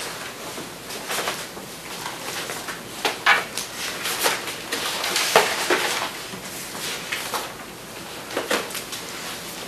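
Sheets of paper being handled and turned over on a table: a string of short rustles and small knocks, the loudest about halfway through.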